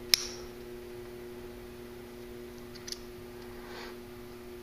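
A steady low hum, with one sharp click just after the start and a fainter click about three seconds in.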